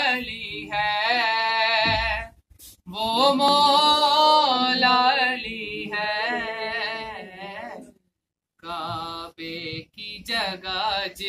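A man singing an Urdu devotional qasida unaccompanied, in long, drawn-out melodic phrases with short breaks for breath.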